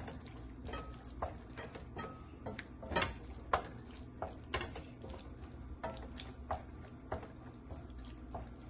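Wooden spatula stirring and scraping a wet raw ground-beef mixture around a stainless steel pan, in uneven strokes about twice a second. The pan is still unheated, so nothing sizzles.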